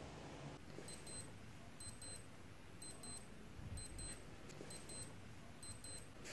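Wristwatch wake-up alarm beeping: short, high-pitched double beeps repeating about once a second, starting about a second in.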